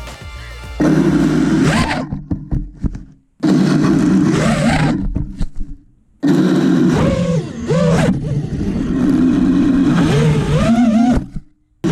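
FPV quadcopter's motors and propellers whining in three loud bursts, the pitch rising and falling with the throttle, each cutting off abruptly. Scattered clicks and knocks fall between the first two bursts.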